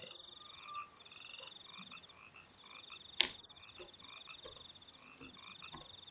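Chorus of frogs and insects calling, steady pulsing trills. One sharp click about three seconds in.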